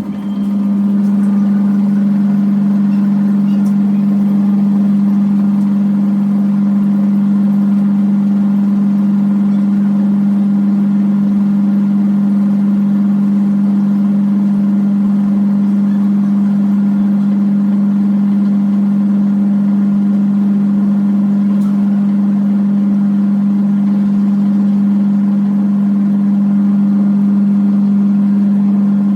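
Top-load automatic washing machine in its spin cycle: a loud, steady motor hum on one low tone, reaching full level about a second in.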